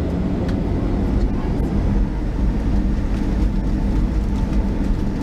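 Boeing 737-700's CFM56-7B turbofan engines at takeoff power as the takeoff roll begins, heard inside the cabin as a steady low rumble with a faint hum.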